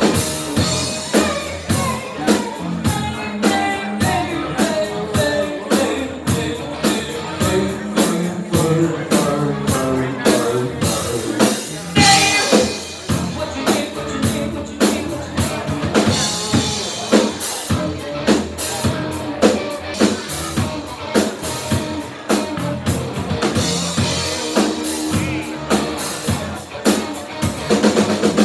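Live rock band playing: a drum kit keeping a steady beat, with electric guitar and bass, and a woman singing over it.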